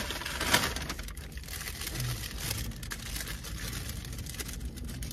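Paper fast-food wrappers rustling and crinkling as they are handled, loudest in the first half-second, over a steady low hum.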